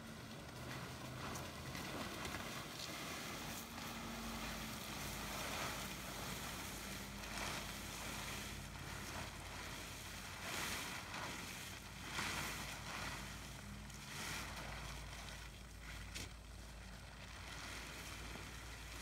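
Blue plastic tarp rustling and crinkling in uneven surges as it is dragged out and spread over grass.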